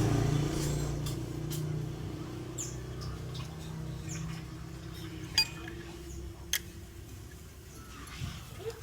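A few sharp, scattered metallic clinks and taps as the parts of a Honda Vario 125 scooter's rear CVT pulley assembly are handled and taken apart. They sit over a low hum that fades away in the first half.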